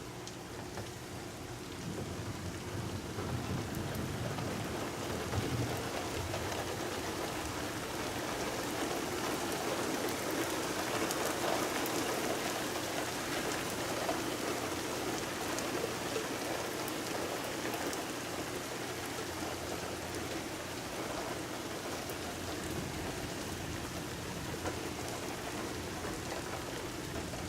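Steady rain falling hard, pattering on surfaces, getting louder about two seconds in. Low rumbles of thunder come through a few seconds in.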